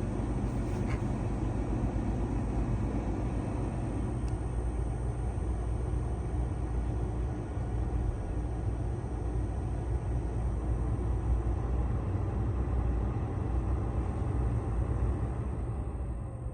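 Honda N-ONE's cabin blower motor running, with a steady, thin, high-pitched whine that is quite grating, over a low rumble from the car: the abnormal noise of the blower motor.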